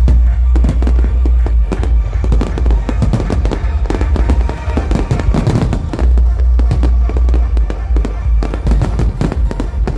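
Fireworks going off in rapid succession, dense bangs and crackling with a heavy low rumble, over music.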